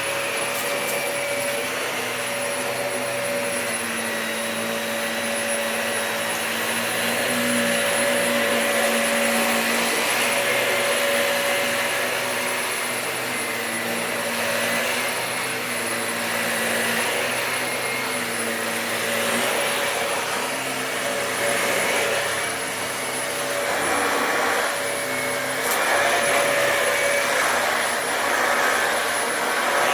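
Dyson DC25 Animal upright vacuum cleaner running while vacuuming carpet: a steady motor whine and airflow rush, swelling and easing a little as it is moved.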